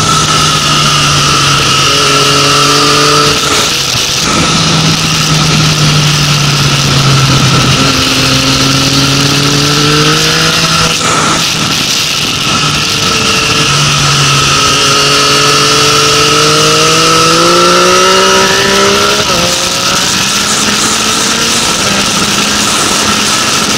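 Yamaha Tracer 900's inline three-cylinder engine heard onboard on track, pulling hard with its pitch rising over several seconds, then dropping back, three times, with a steady rush of wind noise over the microphone.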